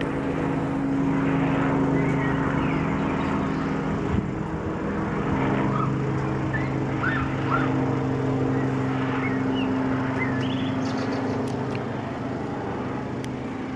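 Light two-bladed helicopter flying low overhead, its rotor and piston engine making a steady drone. The pitch drops a little about four seconds in as it passes, and the sound grows gradually quieter toward the end as it moves away.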